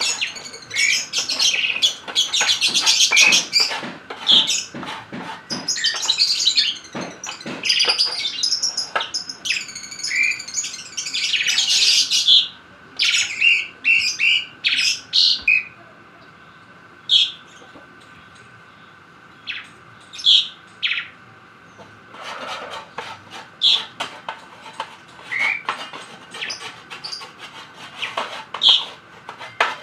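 Lovebirds chirping: rapid, dense high chirps for about the first twelve seconds, then single sharp calls every few seconds.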